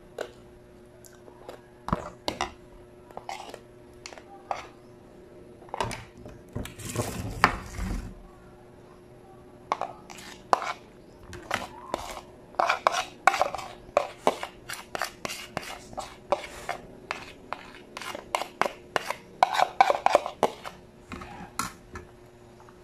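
Close-up eating sounds of a man chewing adobo-cooked field frog with his hands, mixed with the clatter of plates and a plastic bowl being handled. The sound is a run of many short clicks and smacks, denser in the second half, with a longer burst of noise about seven seconds in.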